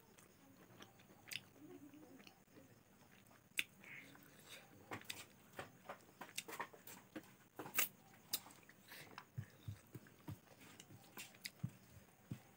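Close-up chewing and biting of boiled chicken and rice eaten by hand: a run of short, sharp wet clicks that come more often from about five seconds in.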